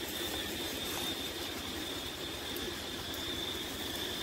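Steady outdoor background: a low, even drone under a constant high-pitched whine, with wind rumbling on the microphone.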